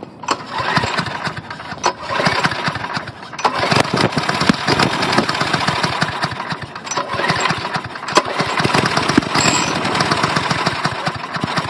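Lawn mower engine running loudly, its speed rising and falling a few times.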